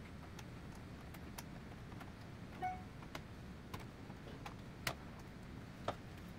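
Faint, scattered light clicks and taps as a metal shield plate is set and pressed down over a home computer's circuit board and the plastic case parts are handled, with a brief ringing ping about two and a half seconds in.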